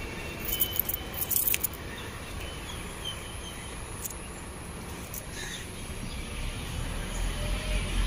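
Outdoor ambience while walking: a steady hum of distant traffic that grows louder near the end, a few clicks and rattles of handling noise about a second in, and some faint short high chirps.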